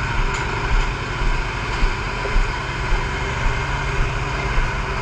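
A vehicle engine running steadily with a constant low rumble, small irregular bumps in loudness, and faint steady tones above it.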